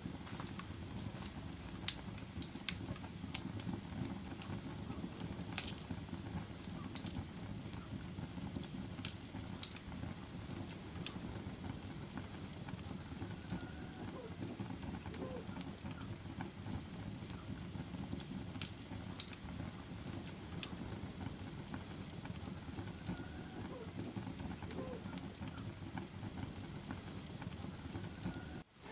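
Wood fire burning: a steady low rumble of flames with scattered sharp crackles and pops. The sound drops out for a moment near the end.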